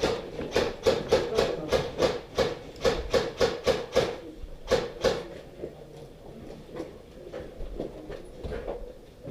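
Airsoft gun fired in rapid single shots, about four sharp cracks a second, which stop about five seconds in. Only a few fainter shots follow.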